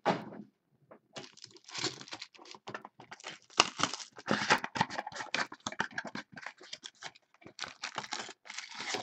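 Trading-card packaging being torn open and crinkled: a dense run of rips and crackles, busiest in the middle after a short pause near the start.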